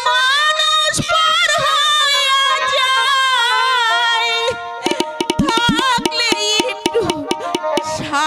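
Jatra stage-band music: a wavering, held melody line, then from about halfway through a quick run of hand-drum strokes under a steady held chord.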